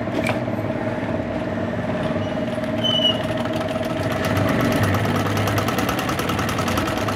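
Super Master sewing machine running fast, stitching a test seam after its needle plate has been refitted. A steady whine, with the rapid ticking of the needle strokes growing clearer in the second half.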